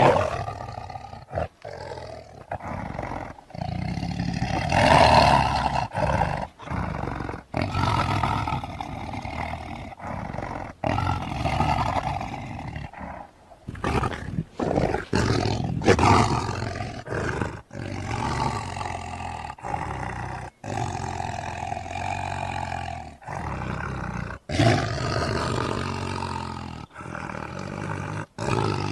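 Lion roaring and growling in a long series of deep calls, starting suddenly and broken by short abrupt gaps between spliced recordings.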